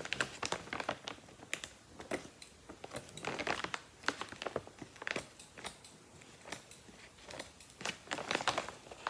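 Woven plastic feed sack crinkling as it is handled, with irregular short clicks of small scissors snipping loose threads.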